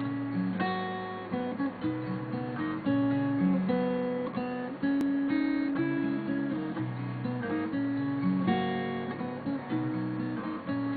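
Acoustic guitar being played, sounding a chord progression with the chords changing about once a second.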